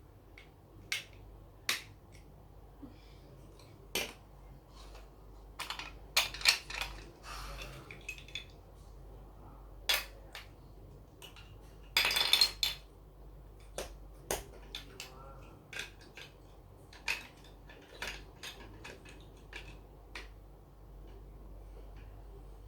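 Plastic Lego pieces being handled and pressed together: irregular sharp clicks and taps, with a longer rattle about twelve seconds in.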